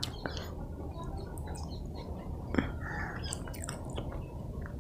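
Faint steady low hum of room background with scattered small clicks, one louder click about two and a half seconds in.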